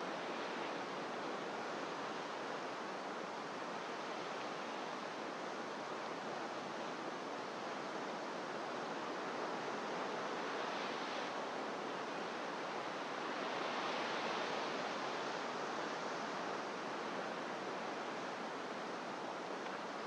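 Ocean surf breaking on rocks far below, a steady wash of noise that swells gently about ten seconds in and again around fourteen seconds.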